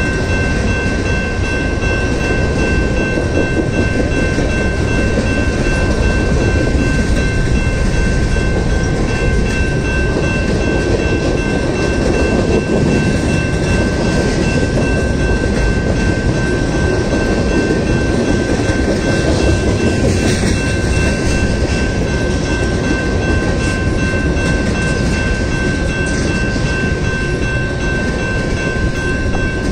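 Freight cars of a long mixed freight train rolling past close by, their steel wheels running on the rail in a steady loud rumble, with two thin steady high-pitched tones above it.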